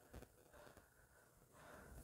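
Near silence: faint room tone, with a soft click or two near the start.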